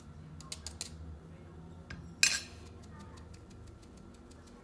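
Light clicks of a metal spoon against a plastic sieve while baking powder is sifted into flour, then one louder clink a little past halfway as the spoon is set down on a glass plate.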